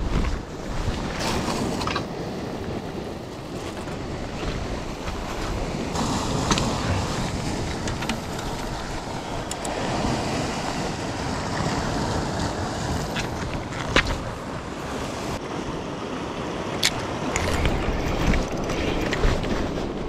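Wind and sea surf on an exposed breakwater, a continuous rushing noise that swells and eases, with gusts buffeting the microphone. A few sharp clicks sound in the second half.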